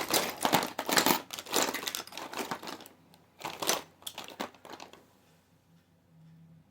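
Rummaging through makeup products: crinkling, rustling handling noise in a run of loud bursts for about three seconds, another short burst near the middle, then quieter.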